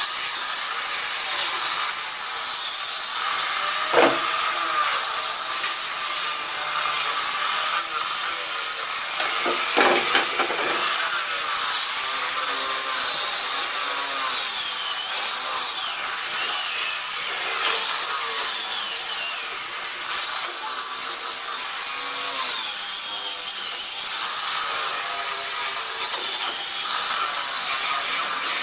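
Continuous rasping rub of a tool or abrasive on the wood of an old wooden chair being refinished. A sharp knock comes about four seconds in, and a few more knocks come around ten seconds.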